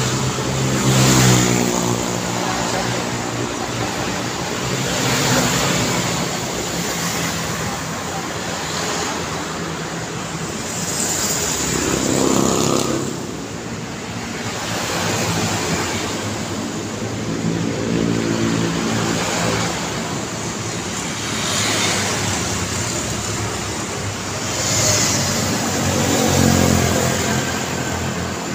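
Motorcycles and cars passing one after another on a city street, each engine swelling and fading as it goes by, over a steady traffic noise.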